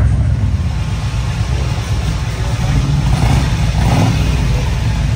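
Motorcycle engines running with a deep, steady rumble.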